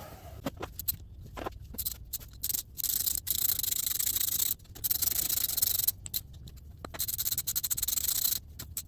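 Hand work on the metal parts of a transaxle being reassembled: scattered clicks and taps, then three stretches of scraping, each about a second long.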